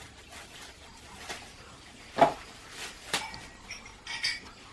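Cardboard and plastic packaging being cut open with scissors and handled: a few short snips and crinkles, the loudest about two seconds in.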